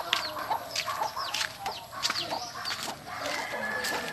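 Chickens calling around a yard: a string of short, high calls, each falling in pitch, about two or three a second.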